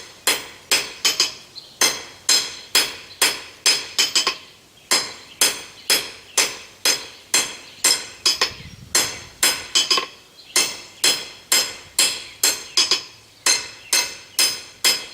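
Blacksmith's hammer striking hot steel bar stock on an anvil in a steady rhythm of about two to three blows a second, each blow ringing. The bar is being forged into a tapered octagon and smoothed.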